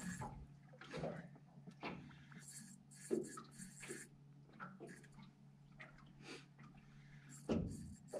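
Faint scattered knocks and clicks on a small fishing boat, over a low steady hum, with a slightly louder knock near the end.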